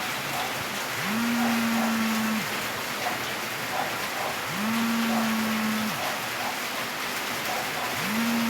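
Samsung Galaxy A32 5G vibrating for its alarm: the vibration motor buzzes in low, steady pulses of about a second and a half, roughly every three and a half seconds, each one sliding up in pitch as the motor spins up and dropping as it stops.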